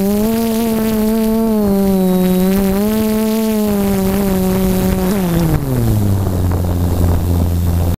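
Electric motor and propeller of an FPV aircraft, heard through its onboard camera, running with a steady whine that swells gently in pitch, over a rush of wind. About five seconds in, the pitch falls sharply to a low hum as it throttles down and comes to rest on the ground.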